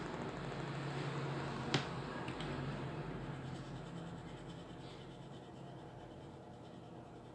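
Eraser and coloured pencil rubbing on drawing paper, growing fainter, with one sharp click a little under two seconds in.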